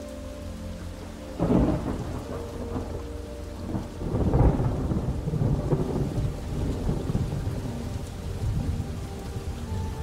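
Thunderstorm: steady rain with a sudden clap of thunder about a second and a half in, then a longer, louder roll of thunder from about four seconds that slowly dies away.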